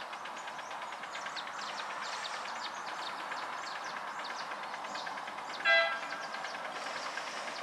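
5-inch gauge live steam locomotive running toward the listener, with a steady hiss and faint rapid ticking. A little before six seconds in its whistle gives one short toot, the loudest sound.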